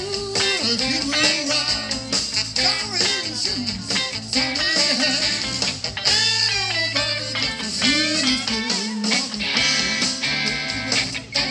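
Live blues band playing, with electric guitars, saxophone and a drum kit.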